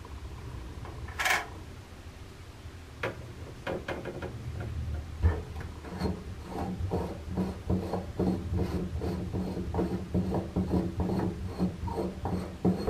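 Chrome cover of a single-lever kitchen faucet being unscrewed by hand in short twists: its metal threads scrape and click, settling into a rhythm of about three strokes a second. A brief hiss comes about a second in.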